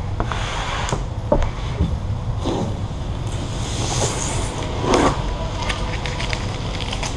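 Steady low hum with scattered soft scrapes, clicks and swishes from a squeegee being stroked over vinyl wrap film.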